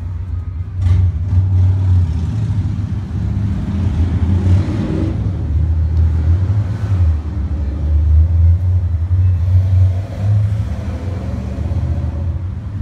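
Loud low rumble that swells and fades irregularly.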